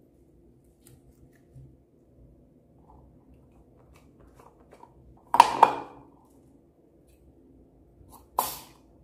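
Scissors snipping into a slime-filled rubber balloon near the end, one short sharp cut. A little past halfway come two louder sharp clicks in quick succession, with faint handling of slime and balloon in between.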